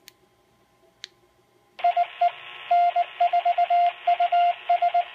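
Two short clicks as a Baofeng UV-5R handheld radio is keyed. About two seconds in, the radio's speaker opens with hiss and a single beeping tone keyed on and off in short and long beeps like Morse code: the Raspberry Pi fox-hunt transmitter answering on the frequency after receiving the signal.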